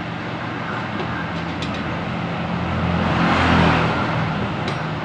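A motor vehicle's engine rumble that swells to its loudest about three seconds in and then fades, like a vehicle passing. A few faint light clicks sound over it.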